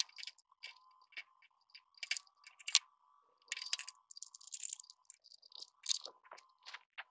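Scattered clicks, light knocks and brief scrapes of a metal-framed glass outdoor wall light being handled and fitted onto its wall bracket, with the wires pushed into the electrical box.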